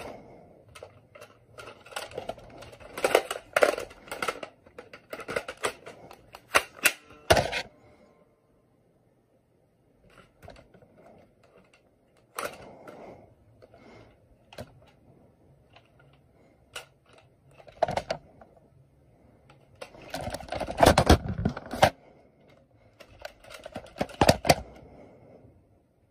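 Plastic clicks, knocks and rattles of a Nerf blaster and its curved magazine being handled, in clusters of quick clicking with a short pause about a third of the way through.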